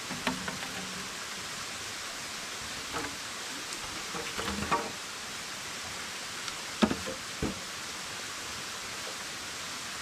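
Lengths of green bamboo knocking and clattering against each other and the rock as poles are handled and laid in place. There are a few short hollow knocks, with a small cluster near the middle and the two loudest a little after it. A steady hiss of rushing water runs underneath.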